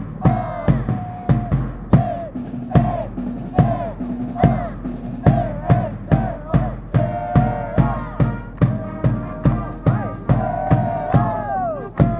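Cheering-squad brass band and bass drum playing a cheer pattern: a steady drum beat about two and a half strokes a second under short, repeated brass phrases that fall off at their ends.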